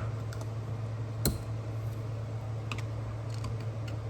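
Small metal clicks and ticks as a wrist pin retainer clip is worked into an outboard piston by hand, one sharper click about a second in, over a steady low hum.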